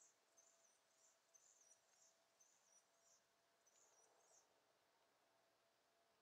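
Very faint, high-pitched chirping: a short chirp figure repeated about twice a second, stopping about four and a half seconds in.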